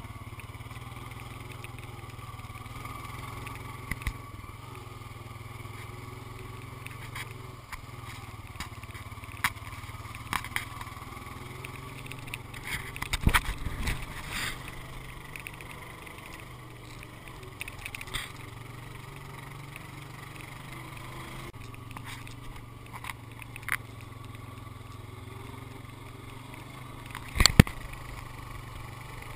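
ATV engine running steadily while riding over a rough dirt track, with sharp knocks and rattles from the jolts: a cluster about halfway through and a hard double knock near the end.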